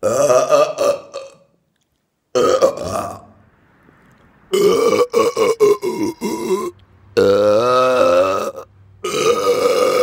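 A man's burps, five in a row, each lasting a second or two with short silences between. The fourth has a wavering, rippling pitch.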